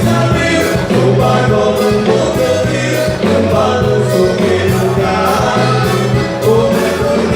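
Gaúcho band playing a vaneira: accordion leading over a steady bass and a regular drum beat.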